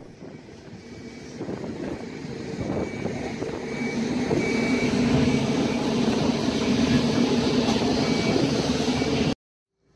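A boatyard travel lift's engine is running as it hoists a catamaran in its slings. The sound grows louder over the first few seconds, holds steady, and cuts off suddenly near the end.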